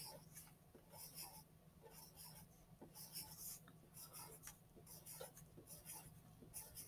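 Faint scratching of a yellow wooden No. 2 pencil on paper as small circles are drawn, in short, irregular strokes.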